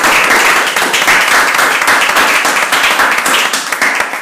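Audience applauding, a dense patter of hand claps that dies away at the very end.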